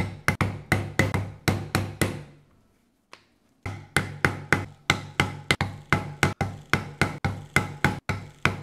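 Mallet striking a steel leather-beveling tool into veg-tan leather, working along the edge of a piece: steady rapid taps about four a second, each with a short ring. The tapping pauses for about a second and a half a little after two seconds in, then carries on.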